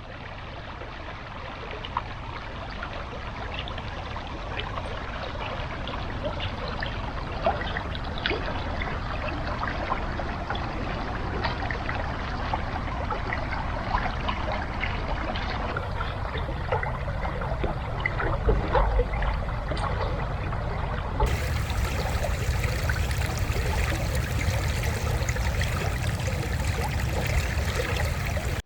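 Water trickling and running in a small stream, a steady rushing sound with many small splashes and droplets. It grows a little louder over the first several seconds.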